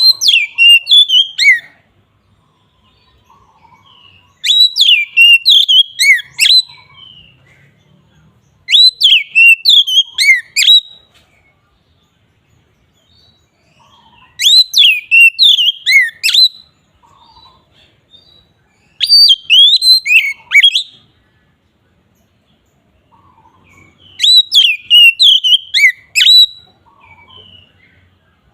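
Oriental magpie-robin (kacer) singing in the loud, open 'ngeplong' style: six short phrases of quick whistled notes sweeping up and down, each about two seconds long, with a few seconds' pause between them.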